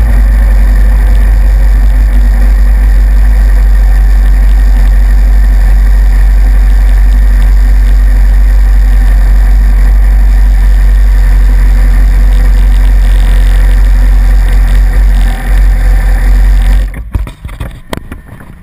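Motorcycle engine running at low revs, very loud and close: a steady, deep drone. It stops about 17 seconds in, followed by a few sharp clicks and knocks as the camera is handled.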